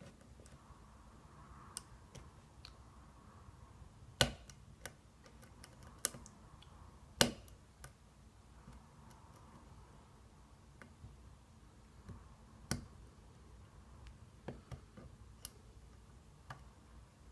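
Single-pin picking of an Assa Scandinavian five-pin lock: scattered faint metallic clicks and ticks from the pick and tension wrench working the pins, with a handful of sharper clicks.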